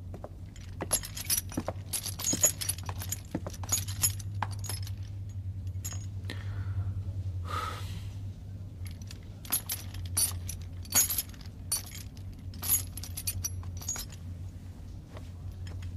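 Metal clinking and jangling: a long run of sharp, irregular clicks and chinks over a low steady hum.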